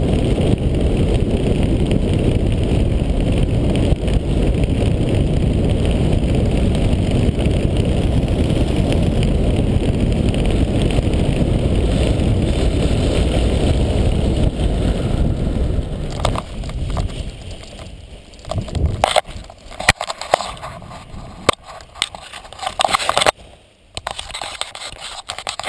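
Steady wind rush buffeting the camera microphone as a paraglider glides down. About sixteen seconds in, it fades away and gives way to irregular rustles, clicks and knocks of the wing, lines and harness being handled on the ground after landing.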